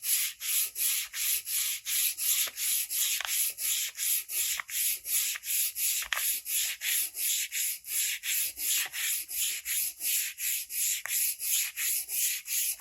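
Back-and-forth hand sanding of an aluminium motorcycle exhaust: even, rhythmic rasping strokes, about three to four a second.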